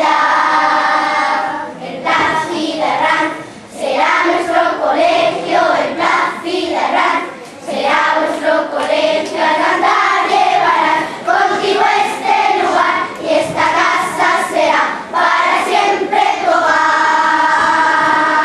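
A children's choir singing together in unison, with long held notes at the start and again near the end.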